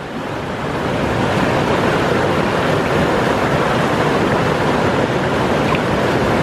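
Fast, turbulent river rushing over rocks: a steady, even noise of whitewater that grows a little louder over the first second.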